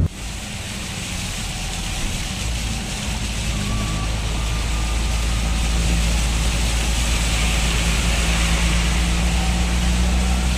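A vehicle's engine running at a steady low hum while floodwater rushes and splashes along the vehicle's side as it drives through the flooded road. The rush of water grows slightly louder over the first few seconds, then holds steady.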